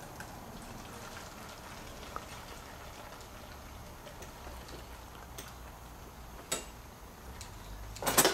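Gasoline trickling through a funnel into a string trimmer's plastic fuel tank, with a few light handling clicks and a louder clatter near the end.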